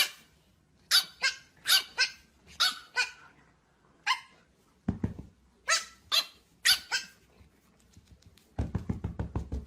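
A dog barking: about ten short, sharp, high-pitched barks in uneven runs, with a pause of about a second and a half in the middle. A low, fast pulsing comes in near the end.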